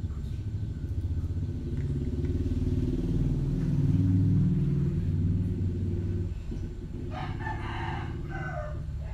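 A gamecock crows once about seven seconds in, a single call of under two seconds that drops in pitch at its close. Under it runs the low rumble of a motor vehicle's engine passing, swelling in the middle and fading.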